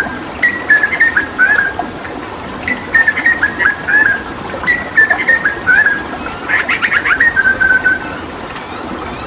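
Hooded butcherbird singing: phrases of short fluty notes that drop in pitch, repeated about every two seconds, then a fast rattling run that ends in a held note. A steady rush of running water underneath.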